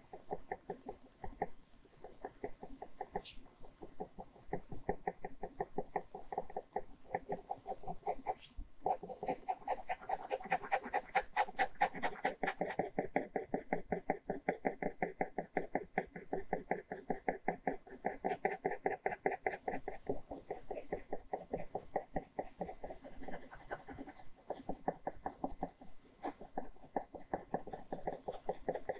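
Ballpoint pen scratching on paper in rapid back-and-forth hatching strokes, several a second, loudest for a few seconds about a third of the way in.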